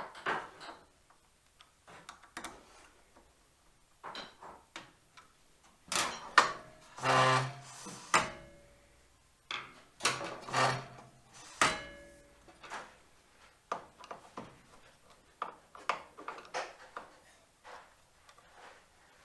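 Intermittent clicks, knocks and scraping of metal parts being handled and adjusted on a table saw during setup, busiest in the middle, with two brief pitched sounds about seven and ten seconds in.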